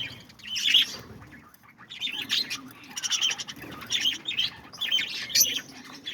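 A flock of budgerigars (pet parakeets) chirping and chattering, with many short, overlapping high calls and a brief lull about a second in.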